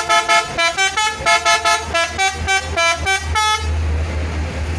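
Indonesian bus 'telolet' musical horn playing a rapid tune of short notes, about five a second and changing in pitch, which stops about three and a half seconds in. A steady low rumble follows.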